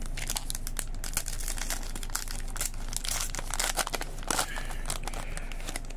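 Wrapper of a Panini Adrenalyn XL trading-card pack crinkling and tearing as it is pulled open by hand, a run of irregular crackles that is loudest past the middle.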